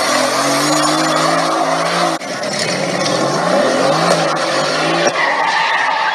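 Tyres squealing as a sports car spins through a smoky burnout, its engine held at high revs. The engine note drops briefly about two seconds in, then rises and falls.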